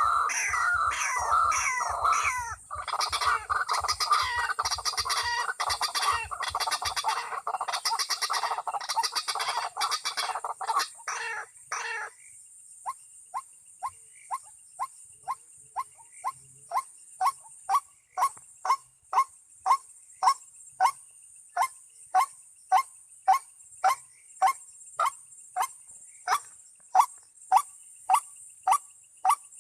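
White-breasted waterhen calling: a dense run of loud, overlapping calls for about the first twelve seconds, then a steady series of short single notes, about two a second.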